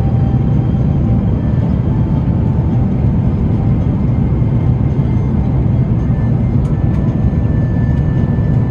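Steady in-flight cabin noise of an Airbus A330-900neo: a loud, even low rumble of its Rolls-Royce Trent 7000 engines and airflow, with faint steady tones above it.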